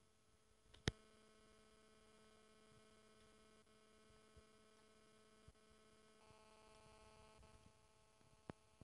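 Near silence with a faint steady hum, broken about a second in by one sharp click and later by a couple of faint ticks.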